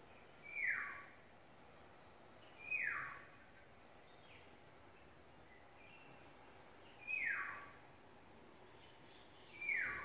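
Black-naped oriole giving a falling, rasping call four times, each about half a second long and a few seconds apart, with a few faint short chirps between.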